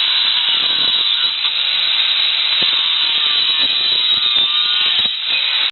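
Angle grinder with a thin metal-cutting disc cutting through 12 mm steel rod: a loud, steady grinding screech whose pitch wavers slightly as the disc bites.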